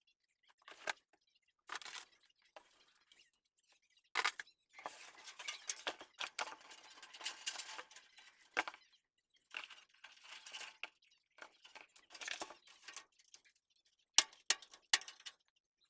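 Hands handling PC parts during assembly: scattered clicks and taps of hard plastic and metal, with stretches of rustling in between and a few sharp, loud clicks near the end.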